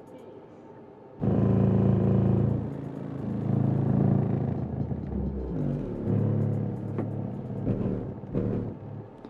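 A 12-inch Skar EVL car subwoofer playing loud, deep bass music in free air with no enclosure, driven with about 1000 watts. The bass kicks in about a second in, and the low notes shift in pitch and level from then on.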